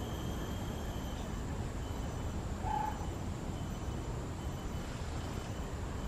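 Outdoor ambience: a steady low rumble with insects holding faint, high, steady tones, the lower of which stops about a second in. A single short call is heard a little before halfway.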